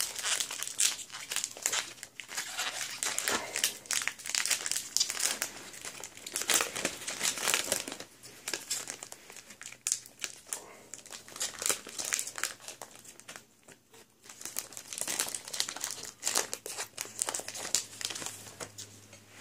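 Foil Pokémon booster pack wrapper crinkling as it is handled and torn open, a busy run of crackles with a short pause about two-thirds of the way through.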